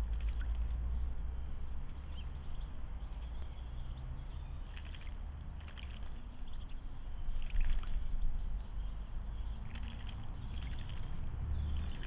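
European robin bathing in a garden bird bath, splashing the water in several short bursts from about a third of the way in, over a steady low rumble.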